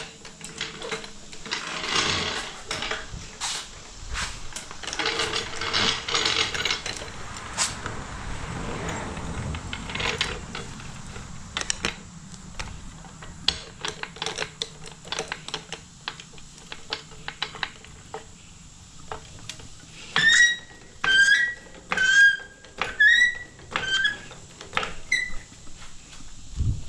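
Steel floor jack rolled across concrete and worked by its long handle: scraping, rattling and a long run of sharp metal clicks and knocks. Near the end come about six short, high chirping squeaks, the loudest sounds.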